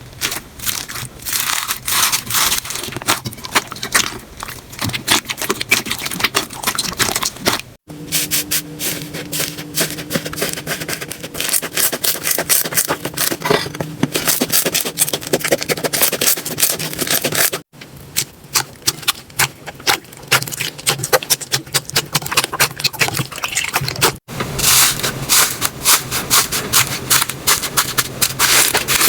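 Slime being pressed and squished by hand, giving dense rapid crackling and popping clicks with some scraping. The sound breaks off for an instant three times and changes character each time.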